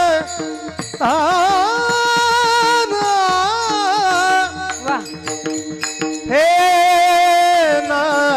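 Marathi kirtan chal: a sung devotional line with long held, ornamented notes over a steady sustained accompaniment, with hand-drum strokes in the middle and near the end.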